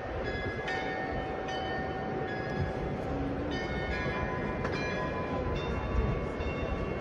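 Bells of the Munich Rathaus-Glockenspiel playing a slow tune, a new note struck about every half second to second and each one ringing on. A low, gusty rumble runs underneath.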